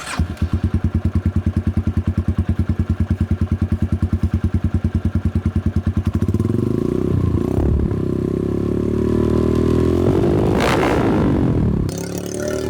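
Motorcycle fitted with an aftermarket exhaust, idling with an even, rapid pulse, then revved up and held at higher revs, with a quick rev up and down about ten seconds in.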